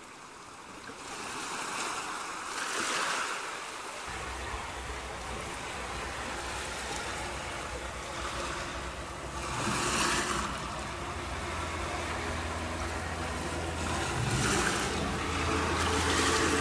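Recorded ocean-surf sound: waves washing in and out in three slow swells. A low steady drone joins about four seconds in, the opening of the dance's backing track.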